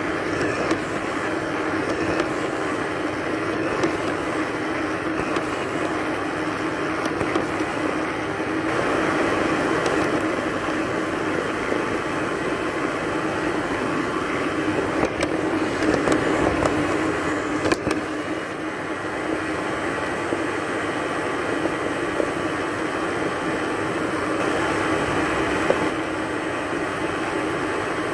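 Robot vacuum cleaner running: a steady hum from its suction motor and brushes, with a few brief knocks along the way.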